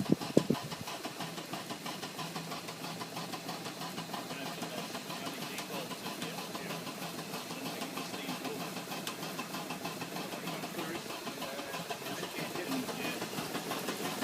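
An engine running steadily with a fast, even beat, with two loud knocks right at the start.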